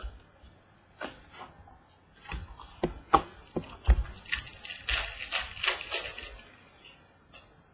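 Trading cards and a pack wrapper being handled: scattered sharp clicks and snaps, then a couple of seconds of crinkling rustle about four seconds in.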